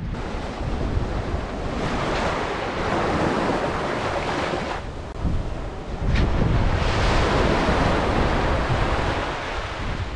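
Small sea waves breaking and washing up a sandy beach, with wind buffeting the microphone. The surf swells about two seconds in, eases, then surges again about six seconds in.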